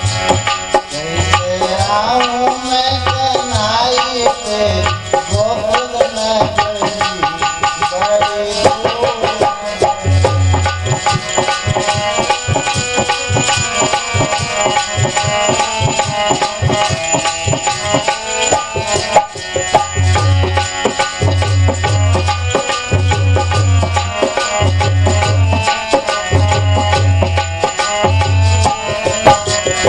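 Indian devotional bhajan music with no words sung: tabla-type hand drums play a steady rhythm with repeated deep bass strokes over sustained melodic accompaniment, and a gliding melody line is heard in the first few seconds.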